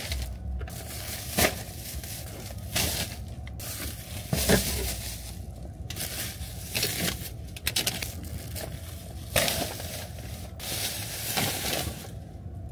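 Plastic packaging crinkling and rustling on and off as it is handled, over a low steady hum.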